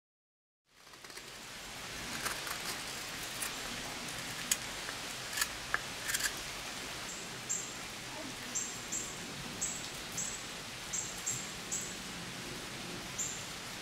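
Carving knives slicing shavings from a poplar spoon, a few crisp cuts in the first half, over a steady outdoor hiss. In the second half short high chirps, likely a bird, repeat about once or twice a second.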